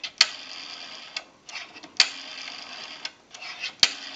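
Rotary dial of an Automatic Electric 3-slot payphone being dialed digit after digit. Each digit makes a sharp click about every two seconds, followed by the whir of the dial spinning back to rest. The dial is returning smoothly.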